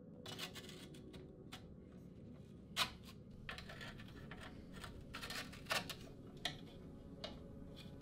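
Light clicks, taps and short scrapes of hands and a small tool working on a carbon road bike frame. The sharpest click comes about three seconds in, with a few more near six seconds.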